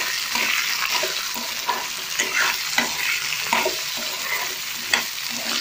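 Green peas frying and sizzling in hot oil in a metal kadhai while a metal spatula stirs them, scraping and clinking against the pan several times.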